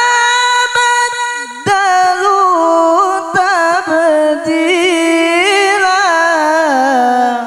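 A man chanting Quran recitation through a handheld microphone: one long held vowel in a single breath, ornamented with wavering turns and stepping down in pitch. Near the end it stops and leaves a short echo.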